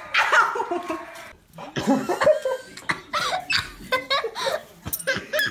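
People laughing in short, broken bursts and giggles.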